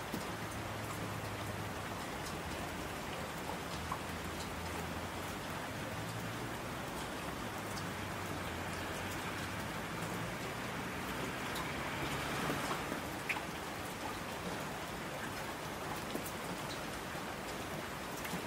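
Steady rain falling, with scattered individual drop ticks and a faint low rumble underneath; it swells a little about twelve seconds in.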